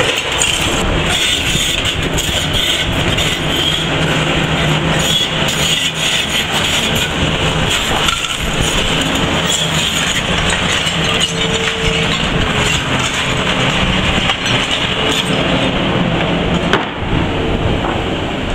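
Demolition excavator at work: its diesel engine and hydraulics running steadily under load, with rubble and masonry crunching and clattering in the grab.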